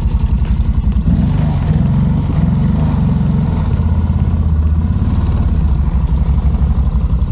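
ATV engine running at idle while stopped. From about a second in it picks up for a few seconds, its pitch wavering, then settles back to an even idle.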